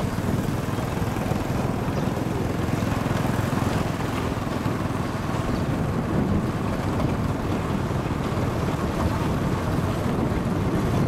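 Motorbike running at a steady road speed while ridden, with wind rumbling over the microphone.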